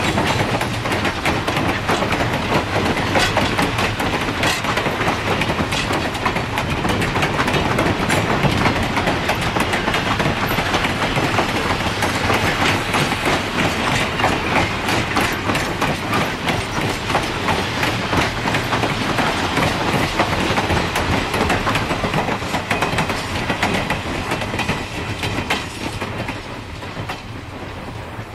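Passenger coaches and a caboose rolling past at speed: steel wheels on the rails give a dense, steady clatter full of quick clicks. It fades away near the end as the last car goes by.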